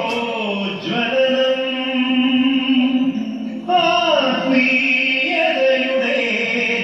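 Music playing: a melody of long held notes that slide between pitches, with a new phrase entering on a falling glide a little past halfway.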